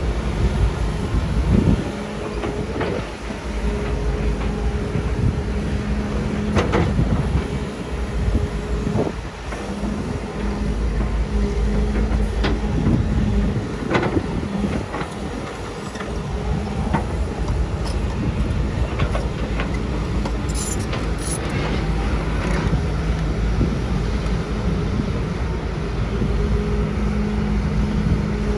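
Komatsu PC200 excavator's diesel engine running steadily under working load, rising and easing every few seconds as the boom and bucket move, with scattered sharp metallic clanks and knocks from the bucket and linkage.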